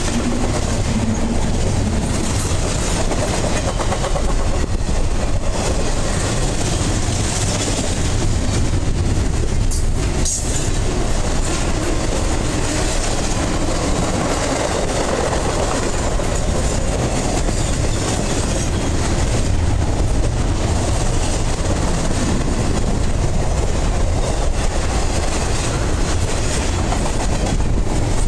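Double-stack intermodal container train's well cars rolling past close by: a steady, loud rumble and rattle of steel wheels on the rails.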